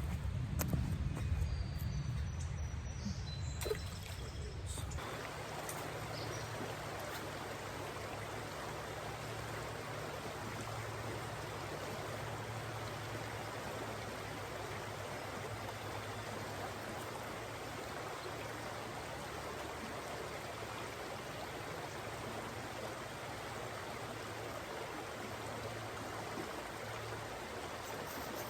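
Creek water running steadily, an even rushing hiss. For the first five seconds a louder low rumble sits over it, and then stops.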